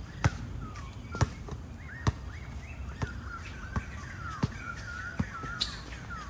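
Basketballs bouncing on a hard court: sharp thuds at uneven intervals, about one a second at first and then closer together, with a run of short, wavering high squeaks in the middle and latter part.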